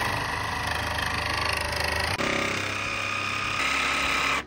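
Cordless jigsaw cutting a round opening through a fiberglass boat deck, its motor and blade running steadily. The pitch shifts slightly about two seconds in, and the saw cuts off suddenly at the end.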